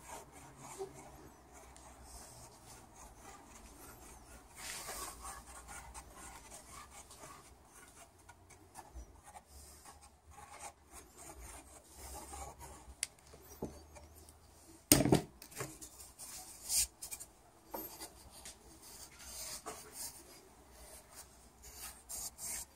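Quiet rubbing and scraping of wood glue being squeezed from a plastic bottle and spread with a thin wooden stick over a rough treated 2x4, with small handling clicks. One sharp knock about fifteen seconds in is the loudest sound.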